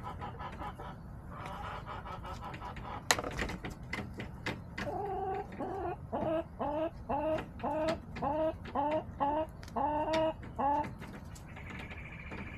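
Backyard hen clucking in a steady run of about a dozen repeated calls, roughly two a second, with scattered clicks and a single sharp knock about three seconds in.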